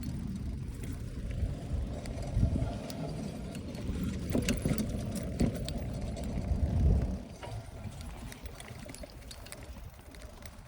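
Bicycle ridden along a dirt road: a low rumble with scattered rattling clicks, easing off and getting quieter after about seven seconds.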